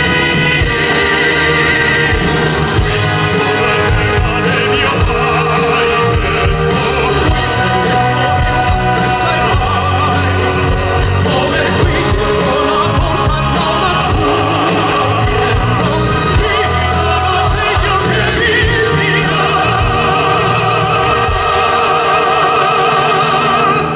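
Live classical-crossover singing by a male vocal quartet over an amplified backing track, loud and dense, stopping just before the end.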